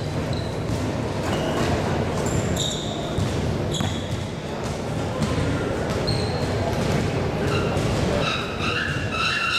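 Basketball bouncing on a hardwood gym floor amid the hall's murmur of voices, with a few short high squeaks.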